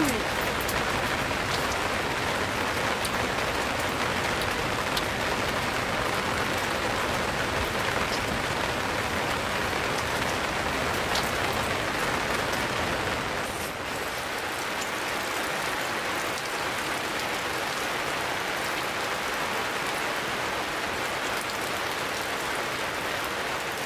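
Steady rain falling, with a few faint drop ticks; it becomes a little quieter about fourteen seconds in.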